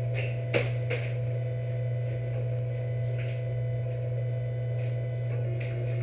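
3D printer running: a steady fan hum, with stepper-motor tones that start and stop as the printer moves. Two sharp clicks come about half a second and a second in.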